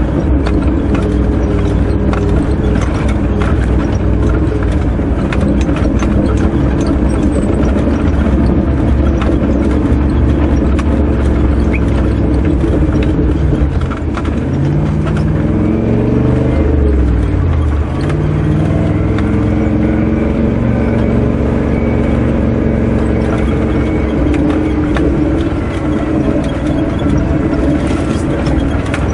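Old Toyota Landcruiser 4WD driving on a rough dirt track: the engine runs steadily under load, with rattles and knocks from the body over the bumps. Around the middle the revs dip and then climb again.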